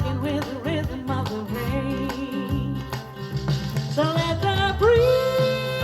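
Country-style band music with a sung melody, played through a PA system, with a long note held near the end.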